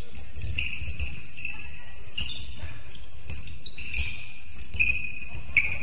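Basketball play on an indoor court: the ball bounces with low thuds while sneakers squeak in short, high chirps on the floor, and two sharper knocks stand out near the end.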